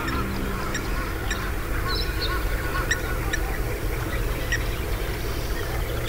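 Wetland birds calling: scattered short calls and chirps, some of them duck- or goose-like, over a steady low rumble of outdoor ambience.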